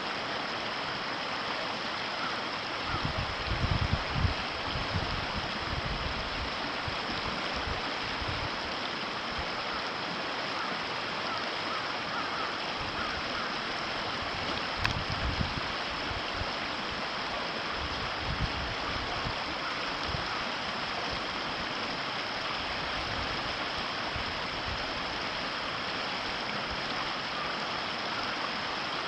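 River water running steadily over its bed. Irregular low bumps come a few seconds in and again about halfway through.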